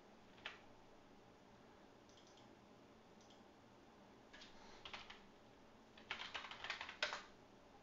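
Computer keyboard typing: a single click about half a second in, a few keystrokes around four to five seconds in, then a quick run of keystrokes near the end.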